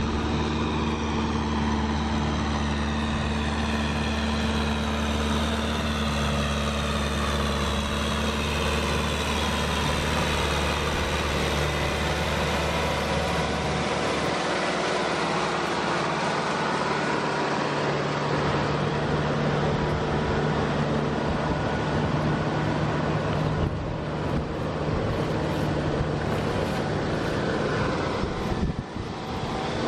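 Two-wheel walking tractor's engine running steadily. Its pitch and low tones shift about halfway through.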